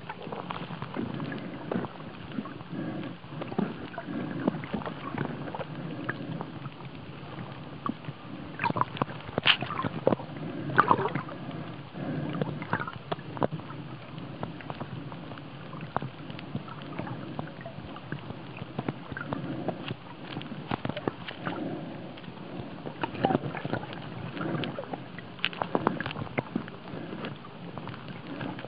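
Muffled sound of water heard by a camera held underwater: a steady low sloshing and gurgling, with scattered sharp clicks and crackles, a few louder bunches of them about nine to eleven seconds in and again near twenty-five seconds.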